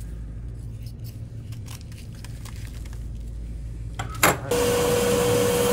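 Dental lab machine switching on: a sharp click about four seconds in, then a steady whine with a loud rushing noise behind it. Before that there are faint handling clicks over a low hum.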